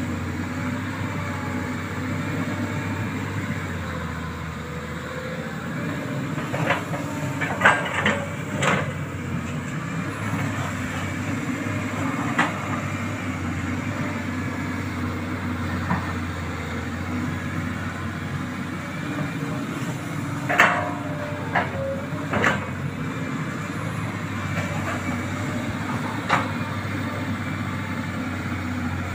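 Sany crawler excavator's diesel engine running steadily while it digs a muddy ditch, with scattered sharp knocks and clanks from the bucket and arm, the loudest about eight seconds in and again about twenty seconds in.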